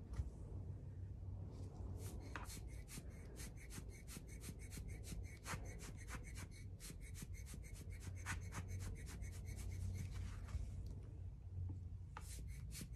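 Hand-squeezed rubber bulb ink blower pumped rapidly, giving a fast run of short puffs of air, about five or six a second, as it pushes wet alcohol ink across the panel. The puffs start about two seconds in, pause briefly, and pick up again near the end, over a faint low hum.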